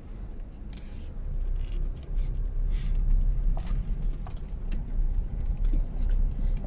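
Car driving over a rough dirt road, heard from inside the cabin: a steady low road rumble that grows louder about two seconds in, with the interior rattling and clicking over the bumps.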